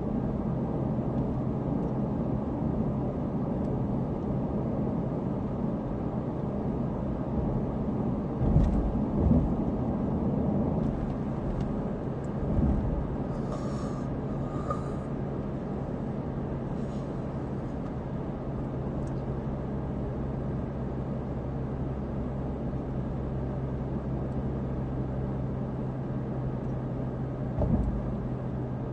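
Steady car engine and tyre noise heard inside the cabin while driving at speed: a low, even hum. A few low thumps come through, two about nine seconds in, one near thirteen seconds and one near the end.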